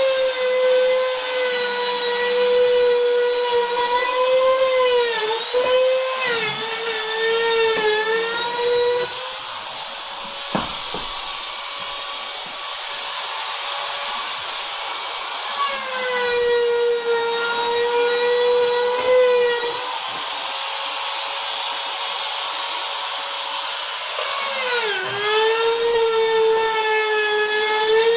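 Old Bosch handheld router with a steel grinding bit, running at speed with a high steady whine while grinding paint out of a sash window's parting bead groove. Its pitch dips several times and recovers, once briefly about a quarter of the way in and again near the end.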